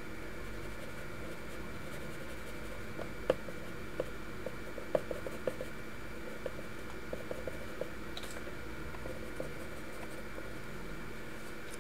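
Pencil scratching on paper as a sketch is coloured in. From about three seconds in come short strokes and small sharp ticks of the pencil tip, over a steady hum.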